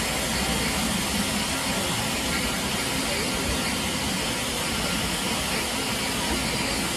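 Steady hiss of steam from a standing BR Standard Class 9F steam locomotive, with no exhaust beats.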